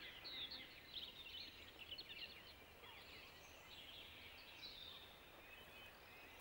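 Faint birdsong: many short, quick chirping notes, thickest in the first few seconds and thinning out after, over a low steady outdoor hiss.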